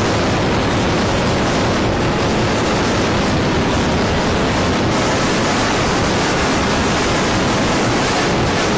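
Loud, steady static-like noise spread evenly from deep bass to high treble, with no tune, beat or voice in it: the logo's audio run through editing effects until only noise is left.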